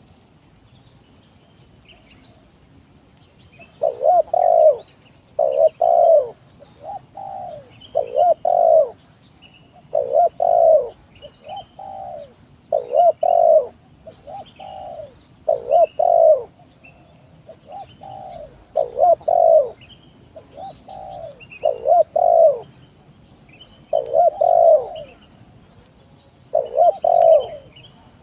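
Spotted dove cooing over and over, a low phrase every one to two seconds, starting about four seconds in after a quiet gap. Faint chirps of small birds and a steady high-pitched buzz run behind it.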